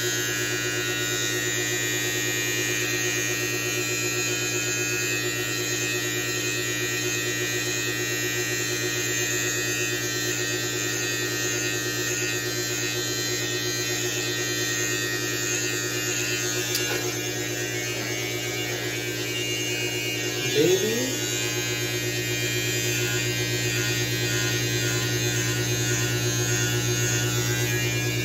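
Electric beard clipper running with a steady, even buzz as it trims a beard, with one brief louder blip about twenty seconds in.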